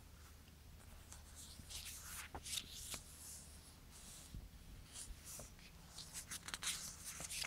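Pages of a glossy CD booklet being turned and handled: a string of short paper rustles and crinkles, with a few sharper clicks.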